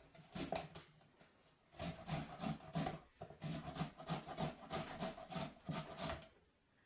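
Ginger being grated: quick rasping strokes, about four a second, starting about two seconds in and stopping near the end.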